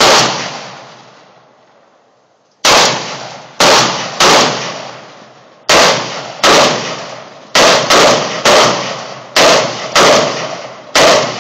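AR-15-style semi-automatic rifle fire: about a dozen single shots at an uneven pace, each loud crack trailing off in an echo. One shot comes right at the start, then after a pause of over two seconds the shots come faster, some only about half a second apart.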